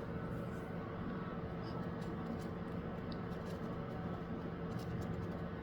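Steady low background hum with a few faint, light taps.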